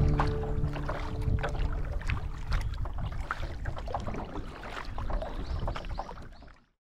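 Water lapping and splashing against a kayak's hull as it glides, with many small sharp drips and slaps. Guitar music fades out in the first second or so, and the water sounds fade away near the end.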